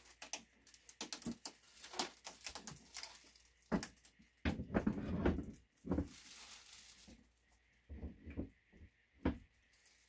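A string of clicks, knocks and low clunks as a 43-inch flat-screen TV is pushed, shifted and tilted on its metal wall-mount bracket, the heaviest thuds in the middle.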